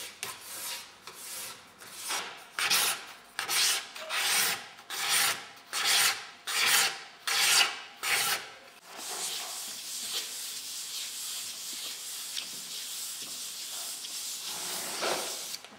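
Steel card scraper drawn over a tortoiseshell plate in regular strokes, a little more than one a second, smoothing the shell and raising fine shavings. About nine seconds in, the strokes give way to a steady, unbroken rubbing as the shell is sanded and polished by hand.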